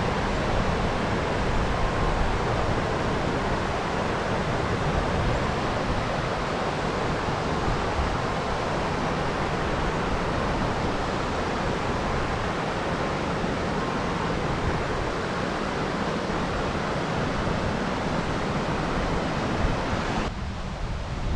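Water pouring over Minnehaha Falls: a steady, even rush of falling water. About a second before the end the sound drops away abruptly.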